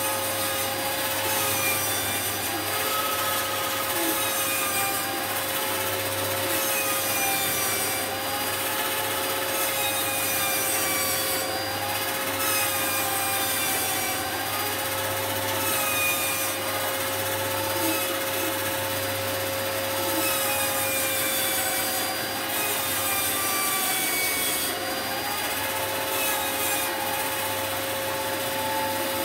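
Felder FB501 bandsaw ripping a dead blue cedar log lengthwise: a steady motor drone under a cutting whine that wavers up and down every couple of seconds as the heavy log is pushed through the blade.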